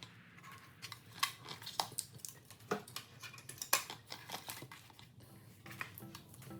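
Packaging and small parts being handled by hand: irregular clicks, taps and light rustles.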